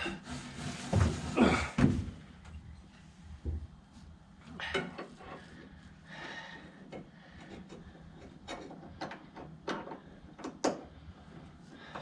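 Scattered clicks and knocks of small parts being handled and fitted on the Jaguar MkII's wiper motor assembly as a cap is put on, with a few heavier thumps about a second in.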